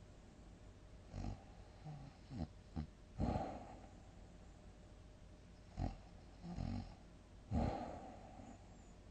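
A sleeping person snoring: a string of short, irregular snorts and snoring breaths, several in a row over the first few seconds and a few more spaced out in the second half.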